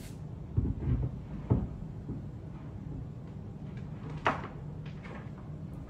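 Dull thumps coming through the ceiling from the room above, a few between about half a second and a second and a half in, then a sharper knock a little after four seconds, over a steady low hum.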